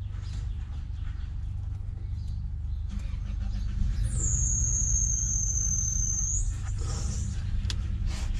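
Petrol lawn mower running at a distance, a steady low drone that grows louder about three seconds in. A thin high steady tone sounds over it for about two seconds midway.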